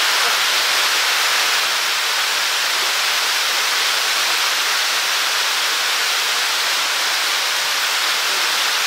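A steady, even hiss like static, with no separate knocks or clicks standing out.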